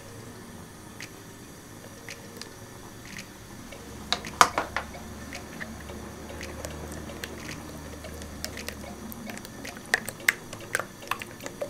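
A raw egg tipped into a mixing bowl and beaten with a silicone spatula: wet squishing and stirring, with a cluster of sharp clicks about four seconds in and scattered taps of the spatula against the bowl near the end.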